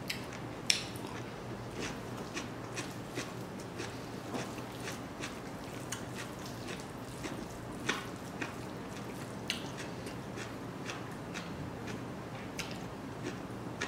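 Eating rice by hand: irregular soft, wet clicks and squishes as fingers knead rice with dry pork, along with mouth sounds of chewing.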